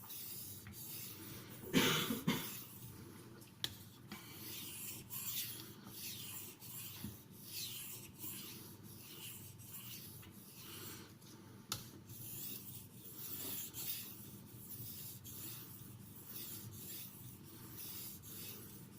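Steel knife blade in CTS XHP stroked over a sharpening stone in light, even passes, about one to two strokes a second, a soft rubbing hiss. These are polishing strokes that work the burr off the edge. A brief louder noise comes about two seconds in.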